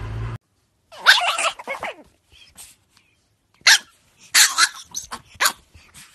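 Pug barking: short, sharp barks in two bunches, one about a second in and another from about four to five and a half seconds in.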